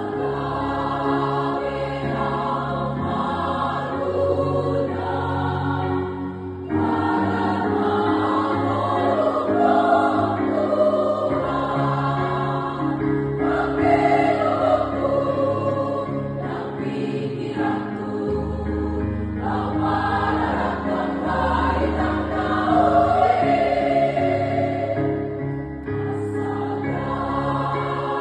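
A women's church choir singing a Batak hymn in several voices, with long held notes.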